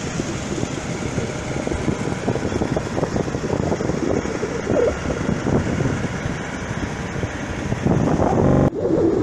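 Wind buffeting the microphone over the rush of breaking surf, a loud, unsteady noise. Near the end it breaks into a brief buzz and cuts off abruptly.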